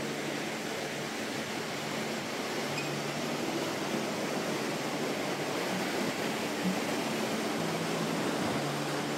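Ocean surf: a steady wash of waves breaking on the beach.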